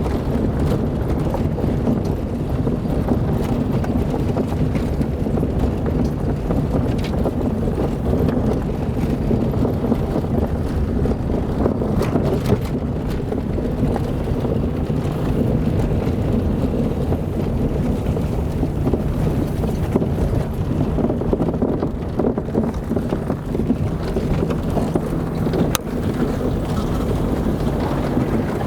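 Car driving on an unpaved dirt road: a steady rumble of engine and tyres, with a couple of short knocks from bumps.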